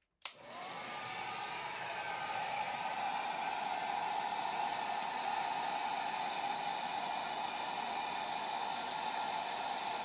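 Revlon hair dryer switched on with a click, its motor spinning up over the first second or so, then blowing steadily on its low setting with a steady whirring rush of air.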